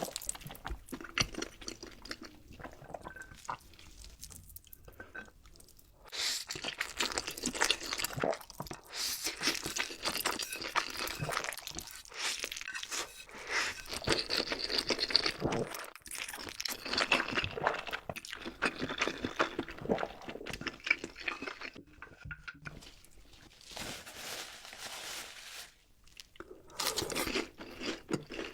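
Close-miked crunching and chewing of crisp food by a person eating. Dense crackling bites come in stretches, with quieter chewing pauses between them.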